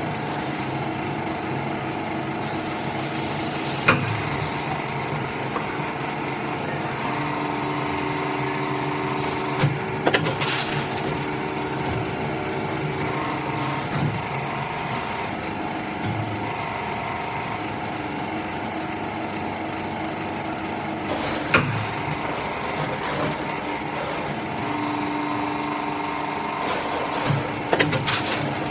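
Injection moulding machine running a bottle-closure mould: a steady machine hum with tones that come and go as the cycle moves on, and several sharp clacks, the last ones near the end as the mould opens.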